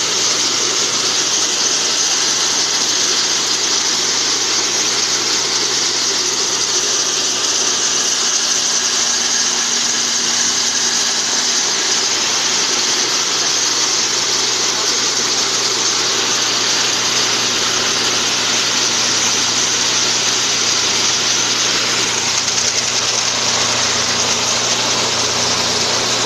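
Electric groundnut shelling machine running steadily: a constant low motor and blower hum under a dense, even rattle of peanuts and shells passing through the sheller.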